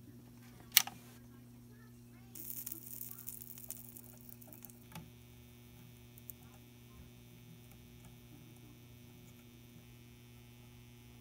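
Solder and rosin flux melting onto a twisted wire splice, heard as a faint crackling sizzle for a couple of seconds, over a steady mains hum. A single sharp click about a second in is the loudest sound.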